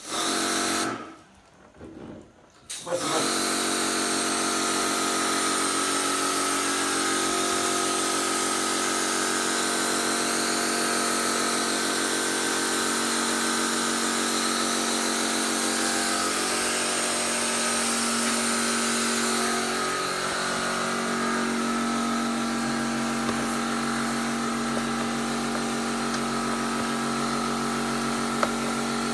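Electric pressure washer running and spraying water to clean an LG air conditioner: a short burst, a pause of about two seconds, then steady running with a constant motor hum and spray hiss, the pitch stepping slightly about two thirds of the way through.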